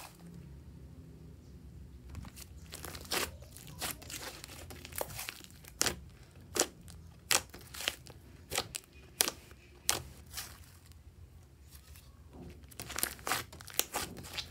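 Thick slime of clay and old lipstick mixed into clear slime, squeezed and pressed by hand, giving irregular sharp pops and crackles, with a quicker run of them near the end.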